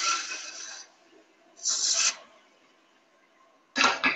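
Turning tool cutting a spinning wooden pepper-mill blank on a lathe: a hissing cut that fades out within the first second, a second short cut about two seconds in, then two sharp knocks near the end.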